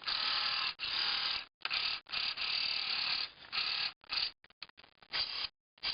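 The sound-effects unit of a 1978 Kenner Star Wars TIE Fighter toy, its 3-volt motor spinning so that a clear plastic strip rasps against it with a ratchet-like buzz. It runs in stop-start bursts of a second or less, shorter and choppier near the end. The unit is out of the toy's body, so it sounds different from when it is put together.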